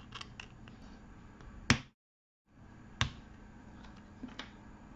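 3D-printed PLA doll parts clicking as a leg is pressed onto its friction pin at the hip: a few light clicks, then one sharp snap a little under two seconds in, another click about three seconds in and a couple of lighter clicks near the end.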